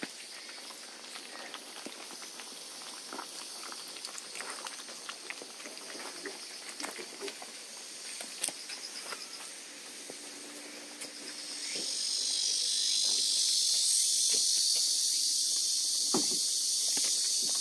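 Puppies chewing and licking water-softened kibble from a plastic bowl, many small wet clicks and crunches. About two-thirds of the way through, a steady high hiss comes up and becomes the loudest sound.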